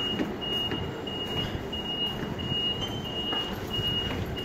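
An electronic beeper sounding a repeated short high beep, about one and a half beeps a second. Footsteps on concrete stairs and a steady station rumble underneath.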